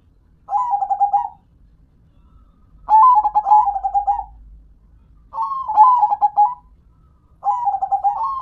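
Zebra dove (perkutut) cooing its rhythmic song: four phrases about two seconds apart, each a quick, stuttering run of coo notes lasting about a second.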